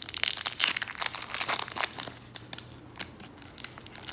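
Wax-paper wrapper of a 1989 Fleer baseball card pack being torn open and crumpled: a dense crinkling for about the first two seconds, then fainter scattered crackles.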